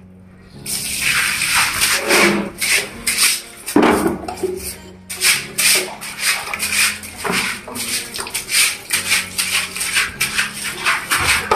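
Long-handled scrub brush scrubbing wet tiled stairs, in repeated scraping strokes about two a second, starting about half a second in.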